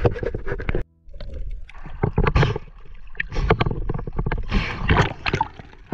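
Water splashing and sloshing around a camera at the water's surface as a spearfisher swims, in uneven bursts.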